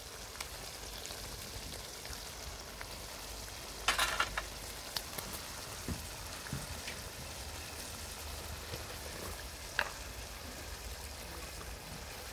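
Fish curry simmering in a steel karahi over a wood fire, a steady sizzling hiss with scattered pops. A short cluster of loud crackles comes about four seconds in, with single pops a second or two later and near ten seconds.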